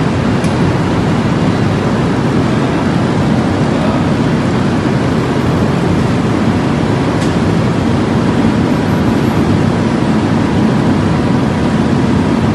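Steady, loud machinery noise in a forge shop, from the open-die forging press's motors and drive running between strokes, with no forging blows. Two faint clicks, one just after the start and one about seven seconds in.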